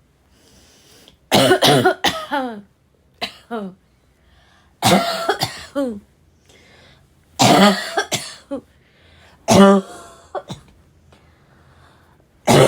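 A woman's raspy, barking coughing fit: about six bouts of several hoarse, voiced coughs each, the pitch of each cough dropping, with short quiet pauses between bouts. The last bout begins near the end.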